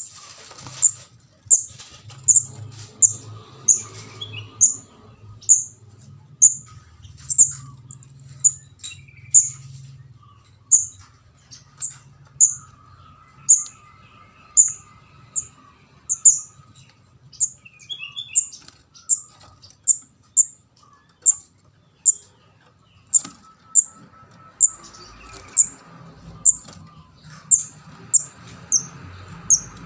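Juvenile orange-headed thrush giving short, very high-pitched chirping calls, repeated evenly about once every three-quarters of a second. This is the young bird's call that bird-catchers use as a lure.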